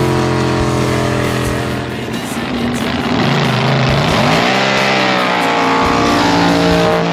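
High-performance hot boat engine running hard at speed. Its pitch drops about three seconds in, then climbs again as it revs up.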